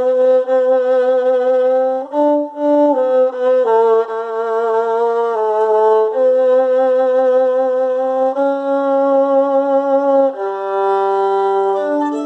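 Solo violin bowed in long held notes, the pitch changing every one to two seconds.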